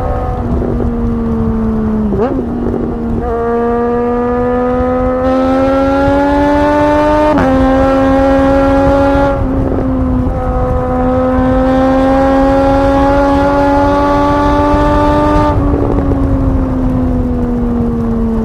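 Triumph Street Triple 765's three-cylinder engine under way, pulling in long runs with the pitch slowly climbing, broken by a few brief changes in the note. Near the end the throttle is rolled off and the pitch falls away steadily.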